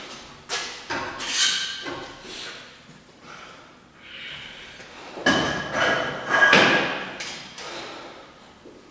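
Weight plates being handled at the end of a loaded barbell: sharp metallic knocks and clanks, with a denser run of ringing clanks about five to seven and a half seconds in as a plate goes onto the bar's sleeve.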